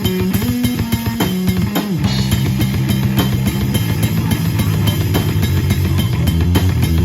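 Live rock band playing instrumentally, with electric guitar, bass guitar and drum kit. The bass line moves through several notes, then settles into a lower, fuller groove about two seconds in, under steady drum hits.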